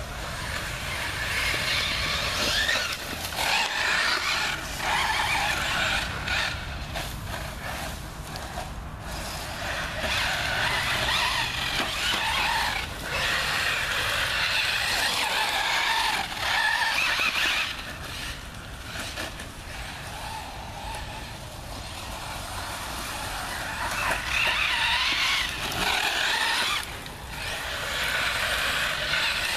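Radio-controlled car driving hard on a dusty gravel path, its motor whining and wavering up and down in pitch with the throttle, growing louder and fading several times as it passes near and pulls away.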